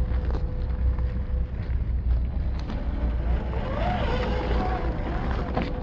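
Boomracing D90 radio-controlled scale crawler's electric motor and gearbox whining steadily as it crawls over loose gravel, with scattered clicks of stones under the tyres and a low rumble throughout.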